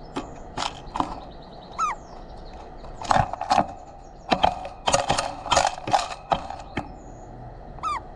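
A bird pecking and tapping at seed in a feeder right next to the microphone: irregular sharp taps, thickest in the middle, with a short falling call twice.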